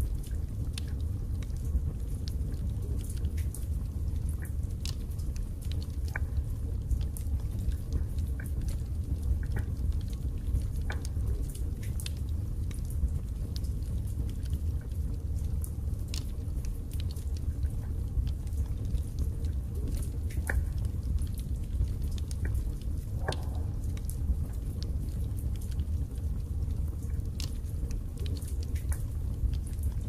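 Wood fire burning in a fireplace: a steady low rumble of flame with scattered sharp crackles and pops from the burning split logs.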